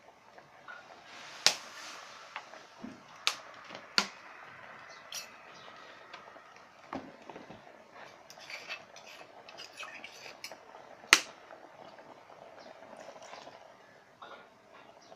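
Coconut-milk curry simmering in an aluminium pot, with a steady bubbling crackle. A few sharp clicks cut through it, the loudest about two-thirds of the way in.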